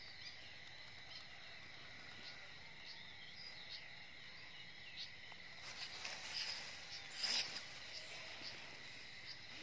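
Faint steady trilling of night insects, with a brief burst of rustling through grass about six to seven seconds in.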